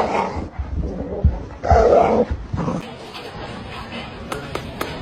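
A dog vocalizing: a loud call at the start and a longer, louder one about two seconds in, then a few faint clicks near the end.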